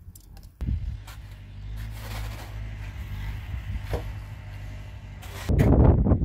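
Tractor engine running steadily; it comes in suddenly about half a second in and gets louder near the end.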